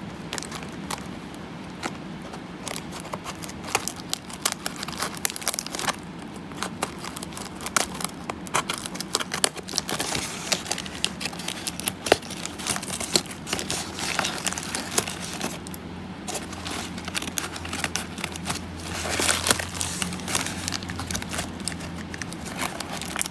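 Plastic film, packing tape and cardboard of a parcel being handled and pulled open: crinkling and rustling with many irregular sharp crackles.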